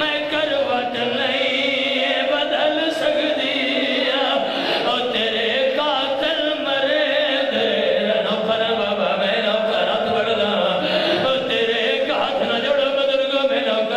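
A man chanting a mournful masaib lament into a microphone, his amplified voice holding long, wavering notes without a break.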